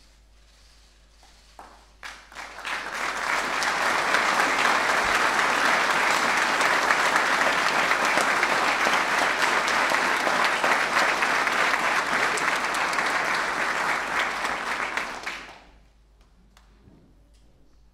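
Audience applauding in a hall: the clapping starts about two seconds in, builds quickly, holds steady for about twelve seconds and dies away near the end.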